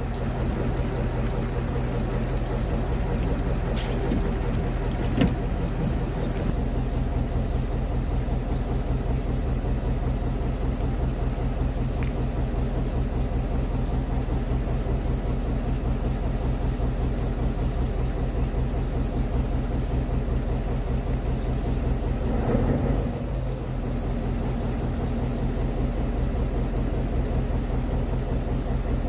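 Fishing boat's engine running steadily, a low even hum, with a few light clicks and a brief swell about 22 seconds in.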